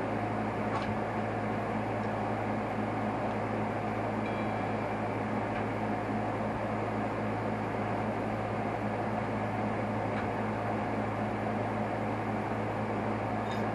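Steady mechanical hum, like a running fan or motor, with a couple of faint clicks.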